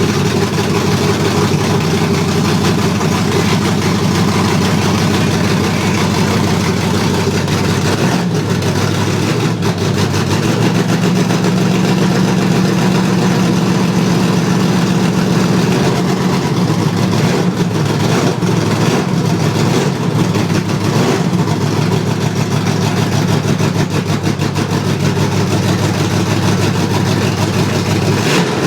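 Pontiac Firebird Trans Am engine running at idle, its first run after sitting for a year. The idle wavers about eight to ten seconds in, then settles slightly higher and runs steadily.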